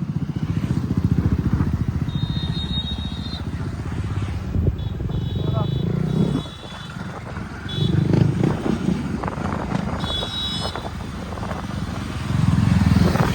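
Motorcycle engine running while riding, dropping off about six seconds in and picking up again a couple of seconds later.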